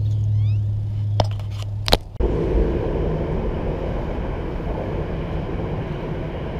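A steady low hum with two sharp clicks, then, after a cut about two seconds in, the even rumble of road traffic on a highway overpass.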